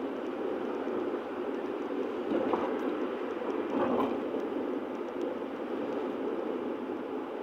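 Steady road and engine noise inside a moving car's cabin at motorway speed, an even rushing hum that swells briefly twice.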